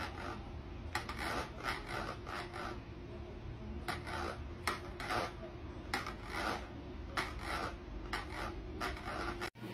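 A cat scraping with its claws inside a plastic bowl: a run of short, rasping scratches, roughly one or two a second with brief pauses.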